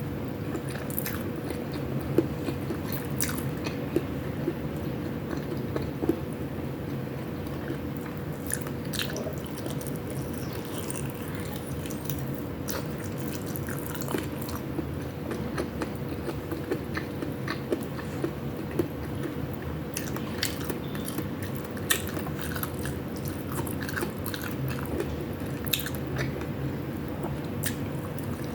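Close-miked mukbang eating sounds: biting and chewing chicken wings and ground pork with rice, with wet mouth smacks and many short, sharp clicks scattered throughout. A faint steady hum sits underneath.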